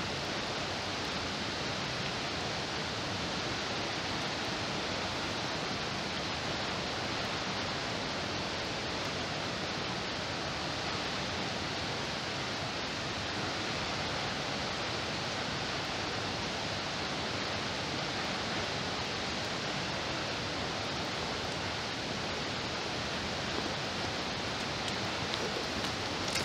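Steady, even rushing of a heavy water discharge from a dam's gates, unbroken throughout.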